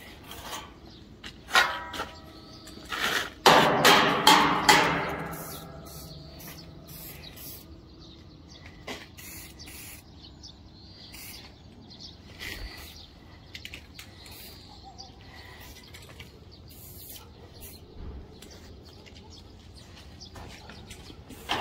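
Footsteps and knocks on a steel roof frame and corrugated sheet-metal roofing. About three and a half seconds in comes a loud metallic clang that rings on for a couple of seconds, and after it only sparse light taps.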